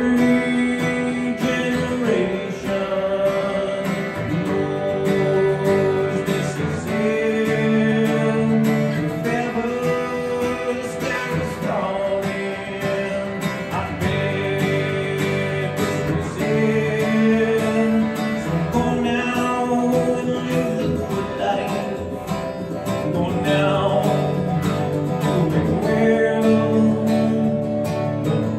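Martin DSS-17 acoustic guitar strummed steadily, plugged through effects pedals and amplified through a PA, with chords changing every couple of seconds.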